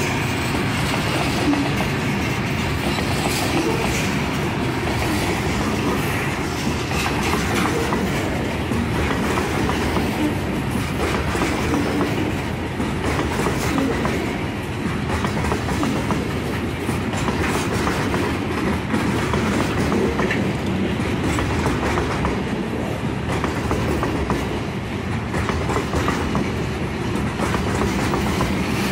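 Loaded stone hopper cars of a freight train rolling past, a steady rumble with a run of clicks as the wheels pass over rail joints.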